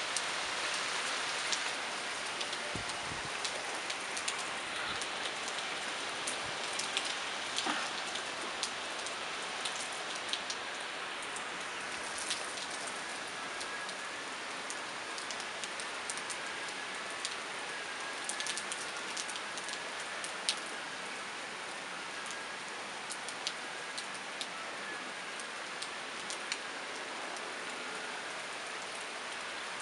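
Heavy rain falling steadily, with many sharp ticks of drops hitting nearby surfaces.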